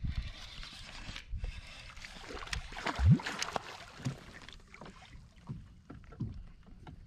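Splashing and knocks against a NuCanoe kayak's hull as a hooked bowfin is brought in, a run of scattered bumps and clicks with the loudest thump about three seconds in.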